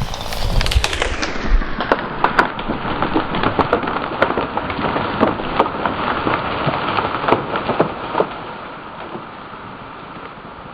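Wood cracking and branches snapping in a dense run of sharp cracks as a freshly cut aspen poplar gives way and goes over, thinning out near the end.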